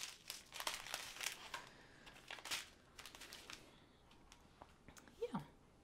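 Small plastic bags of diamond painting drills crinkling and rustling as they are handled and laid down, busiest in the first few seconds and quieter after. A brief low tone falls in pitch near the end.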